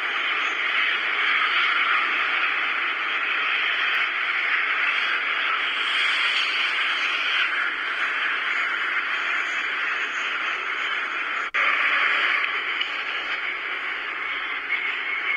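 81-540/541 metro train running at speed through a tunnel: a steady, even rushing noise, with a brief break about eleven seconds in.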